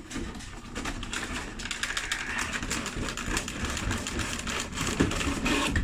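Packaging being handled and unwrapped: a dense, steady crinkling and rustling with many small clicks.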